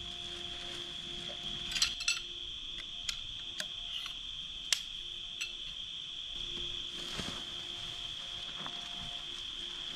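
A steady high chorus of crickets and other night insects. Between about two and five and a half seconds in, a string of sharp clicks and clinks, the two loudest about two and five seconds in, as tent gear is handled during pitching.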